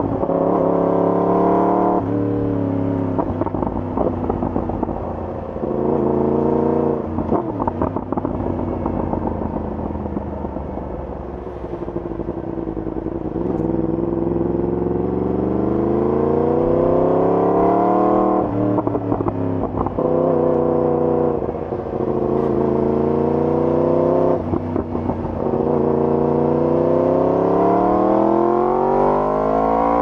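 Yamaha R1's inline-four engine through an Akrapovic full-system exhaust under riding load. The pitch climbs under acceleration and drops sharply at each gear change, several times over.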